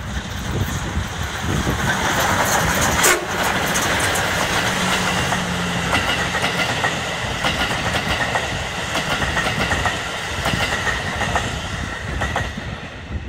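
D51 steam locomotive passing at close range, hauling its train, with a short toot on its whistle, sounded for the steep grade. The coaches then roll by with the clickety-clack of wheels over rail joints.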